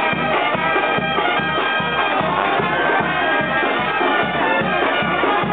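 Loud wind-band music: horns and reeds holding many overlapping notes over a steady low drum beat, about two beats a second.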